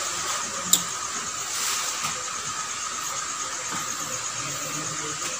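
Steady background hiss with a faint high, steady whine, and one sharp click under a second in.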